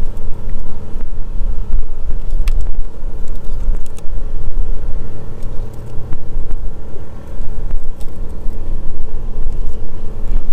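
A motor engine running steadily with a low rumble, with a few light metal clicks from a hub retaining ring being worked into a locking hub.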